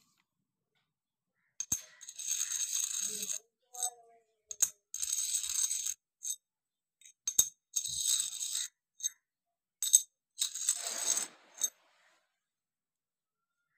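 A large metal coin moved and rubbed against a paper-covered tabletop: four bursts of hissing scraping about a second each, with sharp clicks and taps of the coin between them.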